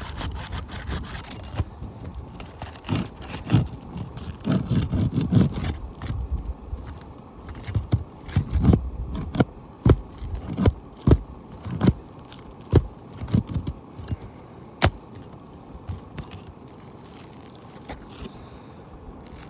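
Scraping and sharp tapping as an asphalt roof shingle is pried and worked loose for removal, with rough scrapes about four seconds in, then a run of separate knocks and clicks through the middle that die away near the end. The shingle is sticking to the course below as it comes up, pulling off its mat.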